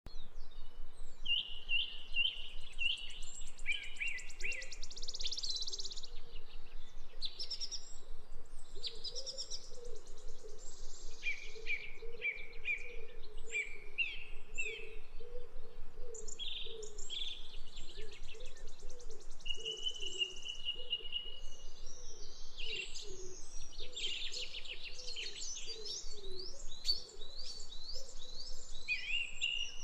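Birds chirping and singing, many quick overlapping calls and trills throughout, over a fainter low repeating warble.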